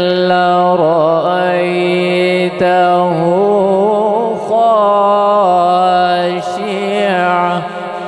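A man reciting the Quran in the melodic tilawat style, drawing out long sung notes with wavering, ornamented turns of pitch.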